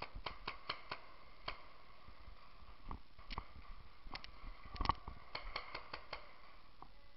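Paintball markers firing: sharp pops in quick strings of three to five, with single shots between, the loudest a little before five seconds in.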